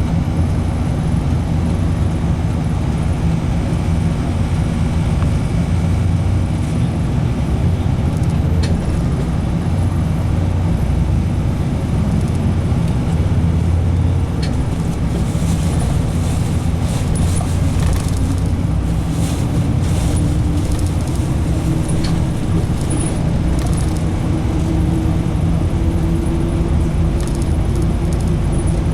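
A moving bus heard from inside the cabin: steady low engine drone and road noise, with scattered light rattles and ticks through the middle, and the engine note climbing slightly later on.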